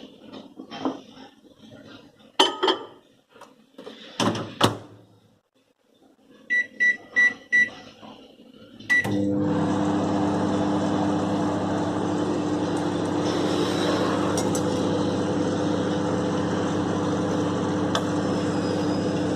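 Microwave oven being set and started. A few knocks and clatters come first, then four short keypad beeps and a single beep about nine seconds in, and after that the oven runs with a steady hum.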